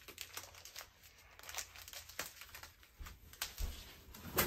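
Plastic packaging crinkling in the hands, a run of irregular crackles that grows a little louder and busier near the end, with a couple of dull knocks.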